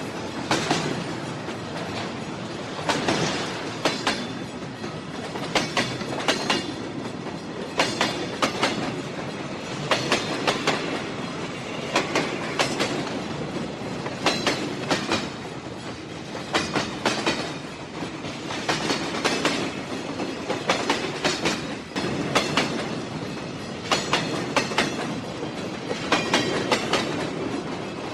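Train running along the track: a steady rolling rumble broken by clickety-clack, a group of sharp clicks from the wheels crossing rail joints about every two seconds.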